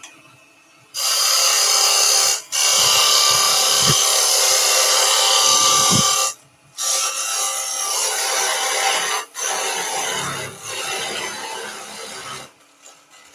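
Parting tool cutting into spinning wood on a lathe, a loud scraping hiss in four stretches with brief breaks where the tool comes off the cut.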